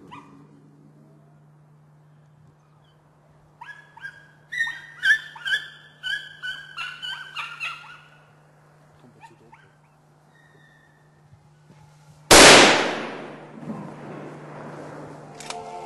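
Hunting dogs baying and yelping in quick succession for a few seconds. About twelve seconds in comes a single loud rifle shot, its echo fading over a second or more.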